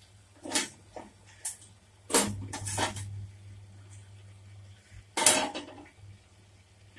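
Stainless steel pot and steel plate clinking and clattering as noodles go into the pot and the plate is set over it as a lid: several short knocks in the first three seconds, then a longer, louder clatter about five seconds in. A low steady hum runs underneath.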